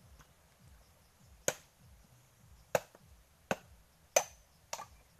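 Machete blade chopping into husked coconuts to split them for copra: five sharp, separate chops at irregular spacing, one with a short metallic ring.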